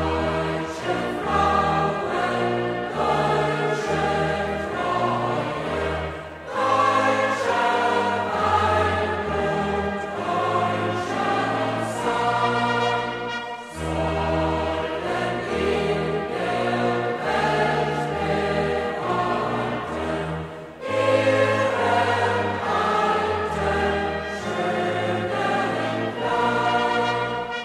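Choir singing to accompaniment, with deep held bass notes under it. It sings in sustained phrases of about seven seconds, each followed by a brief pause.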